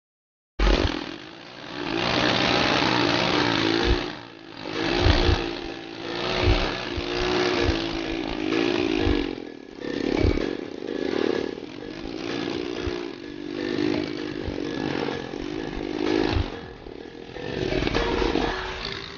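Yamaha Crux's single-cylinder four-stroke engine revved up and down repeatedly with its silencer removed, running through an open exhaust. It starts abruptly about half a second in.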